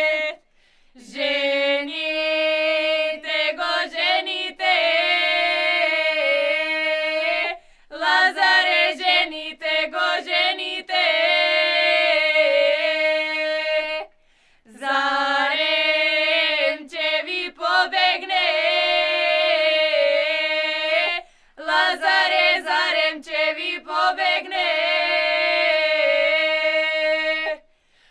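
Young women singing a lazarki ritual song for Lazarus Saturday together without accompaniment, in four long held phrases each broken off by a short pause for breath.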